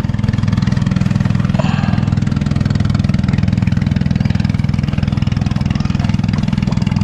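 A small engine running steadily: an even, low drone with a rapid regular beat.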